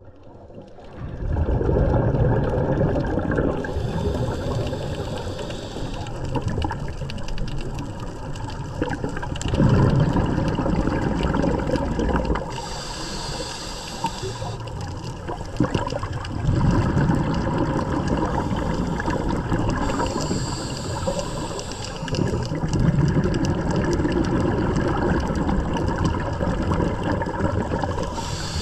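Scuba diver breathing through a regulator underwater: a hiss on each inhale alternating with a longer rumble of exhaled bubbles, about one breath every eight seconds.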